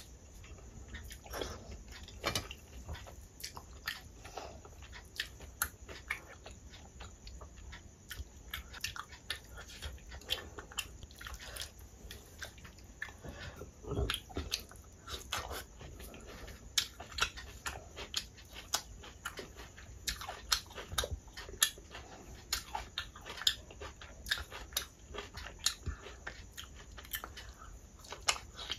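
Close-up wet chewing and lip-smacking of someone eating rice and curry by hand, with fingers squishing and mixing the food against a steel plate. Many short sharp clicks come irregularly, several a second.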